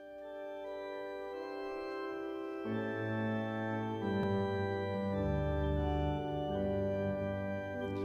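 Organ playing a hymn introduction of held, sustained chords, with bass notes coming in about three seconds in and the sound swelling gradually.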